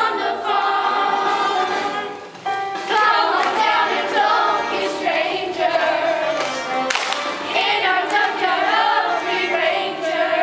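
A choir of mixed voices singing a stage-musical song together, with a brief break about two seconds in.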